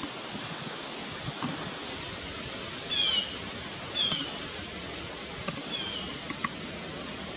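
A bird calling three times, each call a short note that falls slightly in pitch, over a steady hiss of outdoor background noise.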